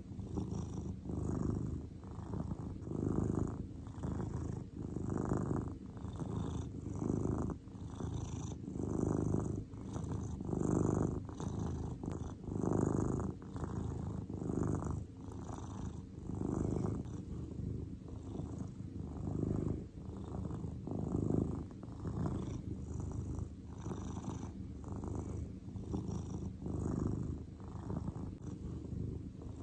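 Grey long-haired domestic cat purring steadily and close, the purr swelling and fading with its breathing, a stronger swell about every two seconds.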